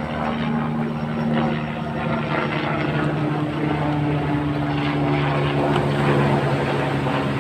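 An engine running steadily, its pitch wavering slightly, over the wash of breaking surf.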